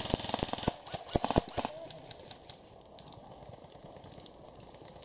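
Airsoft rifle firing a rapid string of sharp, snapping shots that stops about a second and a half in, followed by faint scattered shots.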